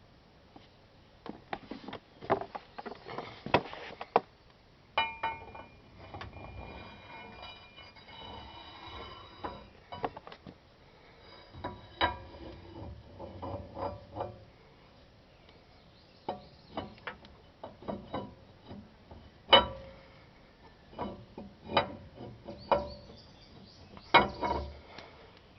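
Metal parts and tools clinking and knocking as the rear axle shaft is handled and slid into the axle housing, with a few seconds of metallic ringing about five seconds in.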